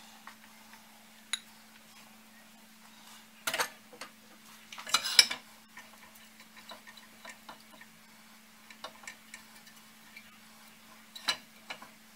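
Glass baking dish knocking and clinking against a gas stove's metal grates as it is handled: a few sharp clinks, the loudest cluster about five seconds in and another near the end, with small ticks between and a steady low hum underneath.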